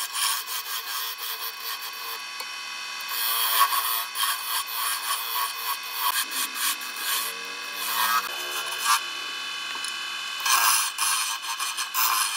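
Turning chisel cutting into a spindle of wood spinning on a wood lathe: a continuous scraping hiss of shavings peeling off, swelling and easing as the tool is pressed in and moved along.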